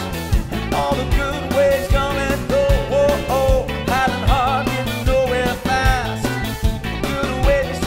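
Background music: a song with a singer over a steady drum beat, bass and guitar.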